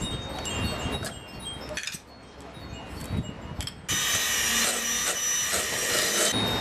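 Electric hand mixer switched on about four seconds in and running steadily, its beaters working cream cheese in a metal bowl. Before it starts there is quieter handling noise with faint high ringing tones.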